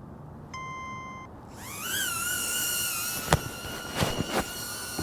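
A short electronic beep, then a small quadcopter drone's propellers spinning up: a rising whine that settles into a steady high-pitched hum as it lifts off, with a few sharp knocks near the end.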